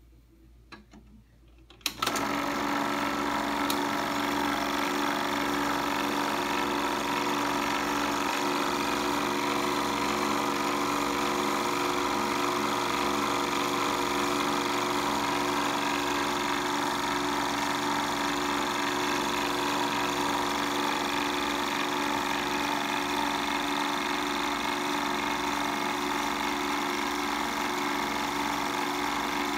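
Bell & Howell 1574 16mm sound projector running, a steady mechanical clatter of the film-advance mechanism with a constant motor hum. It cuts in abruptly about two seconds in, after a moment of near silence.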